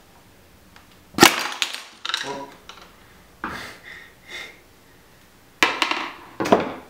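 Sharp knocks and clacks of a RockShox Boxxer fork's removed lower leg tube and fork body being handled and set down on a workbench: about five separate knocks with short ringing, the loudest about a second in and two close together near the end.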